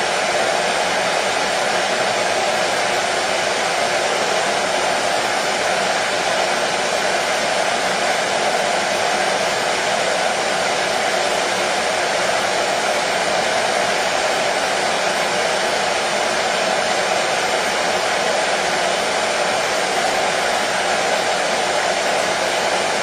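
Hair dryer running steadily, a constant airy rush with a faint motor hum and no change in speed.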